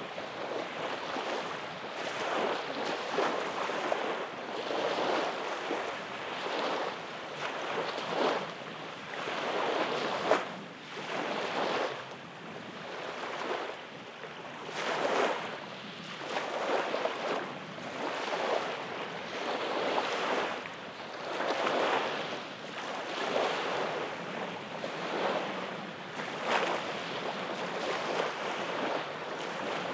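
Small waves lapping onto a sandy beach, each wash swelling and easing every second or two.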